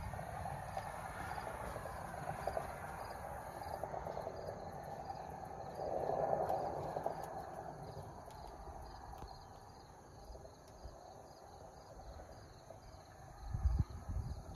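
Insects chirping in a steady, evenly repeated rhythm over quiet outdoor background, with a brief noisy swell about six seconds in and a few low thumps near the end.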